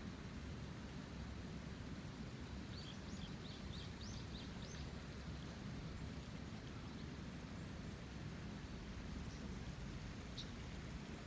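River running full in the rainy season: a steady rush of flowing water. A bird gives a quick run of short, high chirps about three seconds in, and one more chirp near the end.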